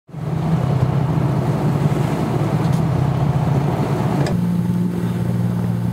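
Fishing boat's engine droning steadily under way, over a rushing of wind and water. About four seconds in the rushing drops away abruptly while the engine drone carries on.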